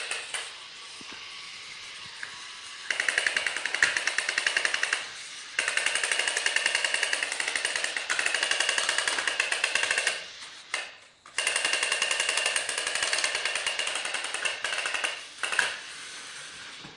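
Remote-control toy train's motor and gears running with a fast, buzzing clatter, starting and stopping in several bursts of a few seconds each.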